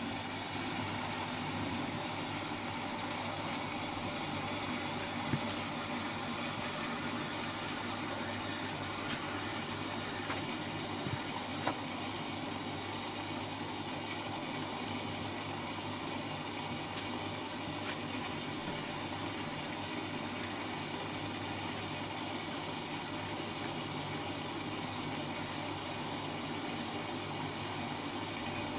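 Servis M3008B washing machine in the opening stage of its quick wash cycle, filling with water: a steady hiss with a low hum and a few faint clicks.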